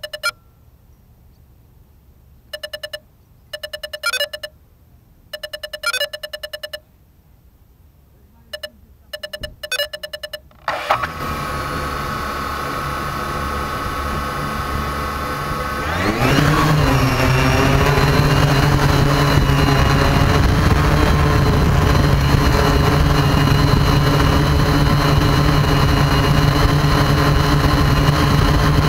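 Quadcopter drone on the ground giving several short runs of rapid electronic beeps. About eleven seconds in, its motors start and idle with a steady whine. About five seconds later they spin up, rising in pitch to a loud, steady hum as the drone lifts off, heard close up from its own on-board camera.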